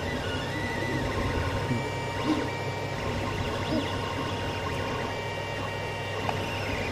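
Creality CR-10 3D printer printing: its stepper motors sing short tones that jump in pitch as the print head moves, over the steady whir of the hotend cooling fan.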